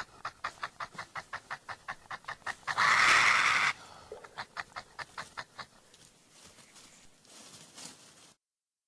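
An animal's rapid chattering call, a fast even string of short pulses about six a second, broken about three seconds in by a loud hissing burst lasting about a second. The chattering then fades out and cuts off near the end.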